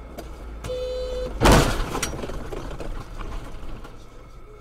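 A short car-horn blast, then about a second and a half in a loud collision impact as the camera car strikes a car cutting across its path, with a second sharp knock half a second later. Steady in-cabin engine and road rumble underneath.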